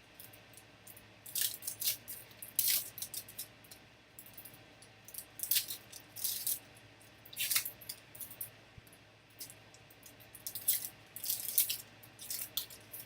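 Trading card pack wrappers being torn open and crinkled, in short crackling bursts every second or two, as packs are opened one after another.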